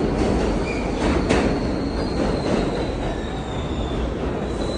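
Subway train running in the station: a steady low rumble of wheels and cars with a thin, high squeal that sinks slightly in pitch over a couple of seconds, and a sharp click about a second in.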